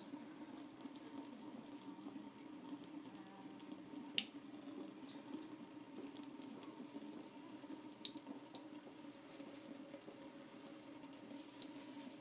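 Sink tap left running, water pouring steadily into the basin, with a few sharp ticks now and then.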